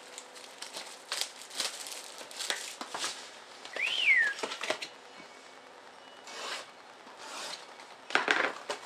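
Rustling and crinkling of a trading-card box's wrapping and cardboard as it is opened, with a brief squeak rising then falling about four seconds in and a louder rustle near the end.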